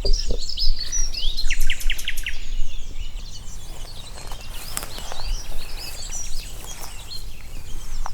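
Several songbirds singing at once in a woodland chorus of overlapping whistles and chirps, with a fast run of repeated notes about a second and a half in.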